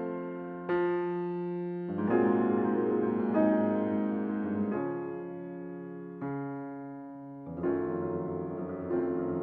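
Background music: slow piano, sustained chords struck every second or two and left to ring and fade.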